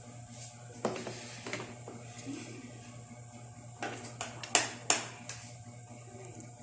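Dishes and utensils clinking and tapping at a table as a meal begins, a handful of scattered sharp clicks with the loudest cluster about four to five seconds in.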